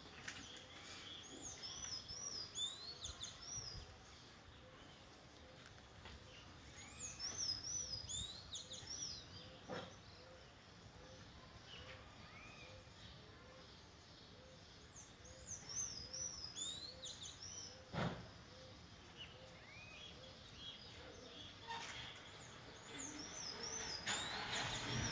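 Songbirds singing outdoors. A bird gives bouts of quick, high warbling notes every several seconds over a steady faint hiss, while a low soft call repeats about twice a second. Two faint knocks come about ten and eighteen seconds in.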